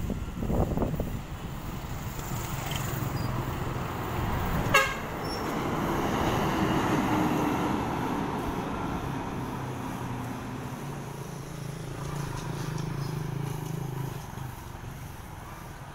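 Passenger bus driving past, its engine hum swelling as it nears and fading away, with a short vehicle horn toot about five seconds in, amid passing road traffic.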